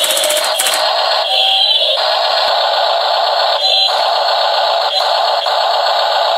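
The Double E 1/16-scale RC excavator's built-in sound module playing a loud, steady electronic sound effect through its small speaker while the breaker/hammer attachment works into clay chunks. The hammer's rapid chattering shows through briefly at the start.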